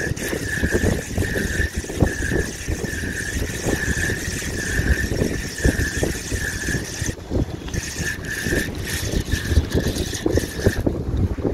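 Spinning reel being cranked to bring in a small hooked fish, its gears whirring in pulses about one and a half times a second with each turn of the handle, pausing briefly about seven seconds in. Wind buffets the microphone underneath.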